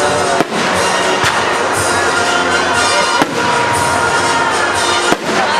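Fireworks display going off: a continuous dense crackle of bursting shells, with four sharper bangs standing out.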